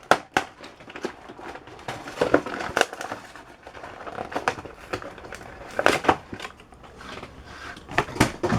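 Plastic and cardboard toy packaging being handled and pulled open to free a toy car: irregular crackles, snaps and clicks.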